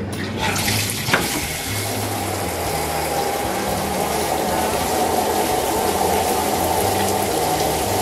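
Shower running: water spraying from the showerhead onto a tiled wall, a steady hiss, with one sharp knock about a second in.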